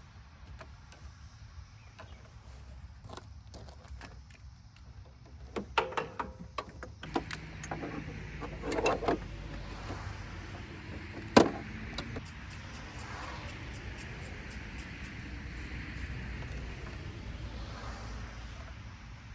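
Clicks and knocks of tools and fittings being handled. From about seven seconds in, an AC vacuum pump runs with a steady hum, pulling the refrigerant system down into vacuum. One sharp knock stands out a few seconds after it starts.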